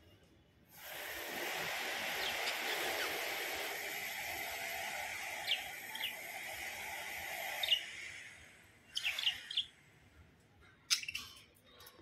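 Caged budgerigars chattering, a dense steady chatter with a few sharp chirps over it, stopping about eight seconds in. A few more short chirps follow about a second later.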